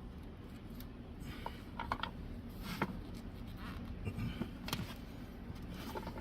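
PVC pipe and fitting being handled and pushed together: a few sharp plastic clicks and short scrapes, over a steady low hum.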